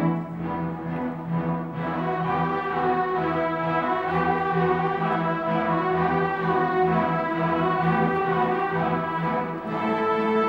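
String orchestra of violins, cellos and double basses playing, with held chords above a pulsing low string line.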